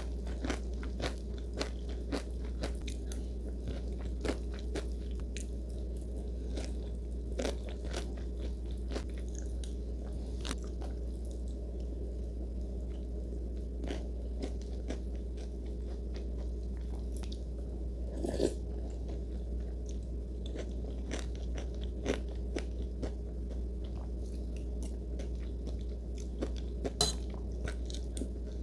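Crisp snack chips being bitten and chewed close to the microphone: a steady run of small crunches, with a few louder bites, over a steady low hum.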